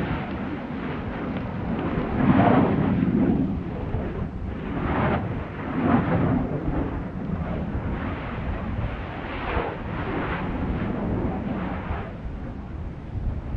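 Stromboli volcano's active crater: a continuous deep rumble that swells in several louder surges, the strongest about two seconds in.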